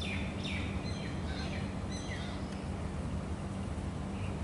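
A bird chirping in a quick run of short, downward-sweeping calls that stop a little past halfway, over a steady low background hum.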